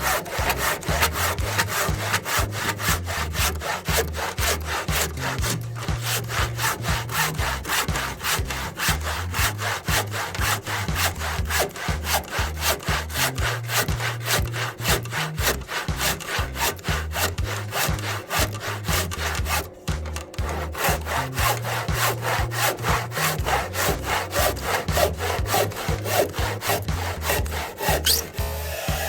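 BAHCO hand saw cutting through wood in rapid, even back-and-forth strokes, about three a second. The strokes break off briefly twice, once about a fifth of the way in and again about two-thirds of the way in.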